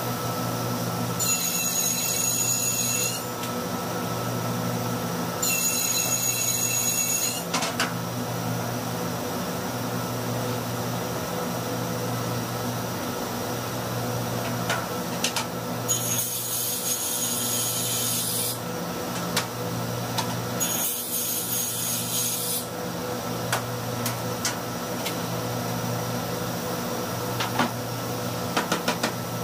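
Table saw running steadily, cutting through wood panels four times. Each cut is a high-pitched whine lasting about two seconds: two near the start and two past the middle. A few sharp knocks come between cuts as the boards are handled.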